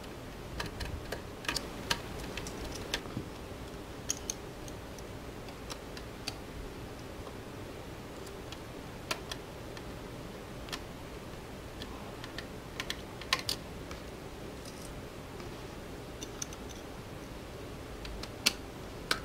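Small metal clicks and taps, scattered and irregular, from brackets, screws and a screwdriver being handled and screwed onto a metal camera mounting ring, over a steady hiss.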